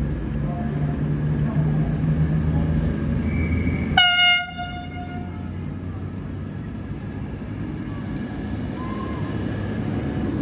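V/Line VLocity diesel railcar horn giving one short, single-note blast about four seconds in, over the steady low rumble of the train. The rumble grows louder near the end.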